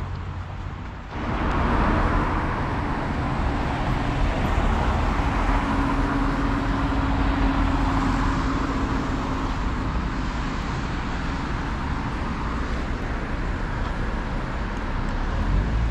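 Road traffic on a wet road: cars passing with tyre hiss and engine noise, coming in abruptly about a second in, with a steady engine hum for several seconds in the middle.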